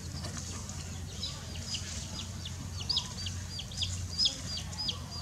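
A domestic chicken chick peeping repeatedly: short, shrill, falling peeps that come several a second from about a second in.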